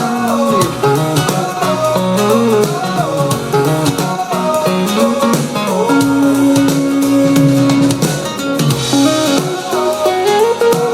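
Instrumental guitar passage of a pop-rock song, with no vocals, played back through an Infinity Video 1 center speaker (dual 5½-inch polypropylene woofers, ½-inch tweeter). One note is held for about two seconds midway.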